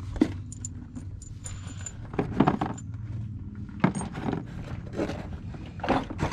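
Loose steel bolts and hardware clinking and rattling as they are handled, with irregular metallic clicks and a few louder knocks.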